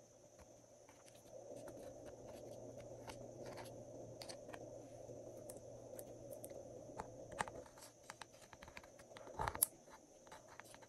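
Metal tweezers scraping and tapping pressed eyeshadow out of a makeup palette's pans and poking it into glitter slime: light scratchy clicks and scrapes, with one sharper knock near the end.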